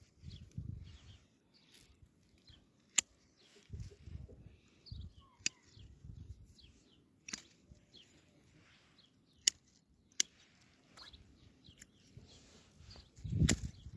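Hand pruning shears snipping dry bramble twigs: about five sharp clicks, one every second or two, with low bumps and rustling from handling the branches, loudest near the end.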